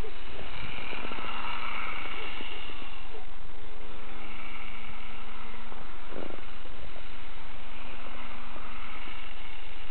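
A motor vehicle running steadily while driving, with wind rushing over the microphone.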